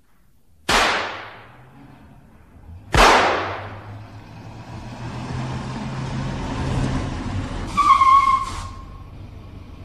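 Two shots from a double-barrelled shotgun being test-fired, about two seconds apart, each with a short echoing tail. A low steady background follows, with a brief higher-pitched sound near the end.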